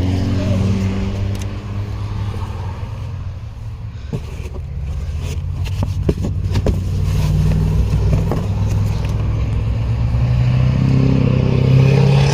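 A motor vehicle engine running steadily, dipping and then rising again in level, with a few sharp knocks and clicks about halfway through.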